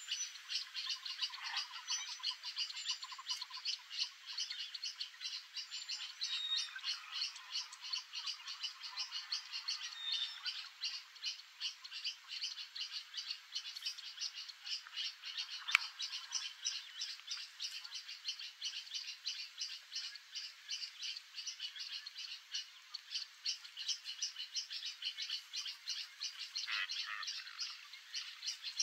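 A steady chorus of animal calls: short high-pitched pulses repeated evenly, about three or four a second, without a break. One sharp click sounds about halfway through.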